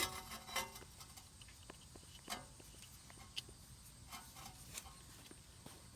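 A few faint, scattered clicks and light taps as a greased brake caliper slide pin is handled and pushed back into place.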